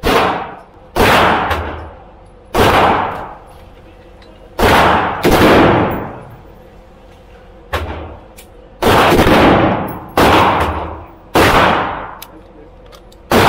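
Gunshots at a shooting range: about eight loud single shots at irregular intervals, each with a long echoing tail, and fainter sharp cracks between them.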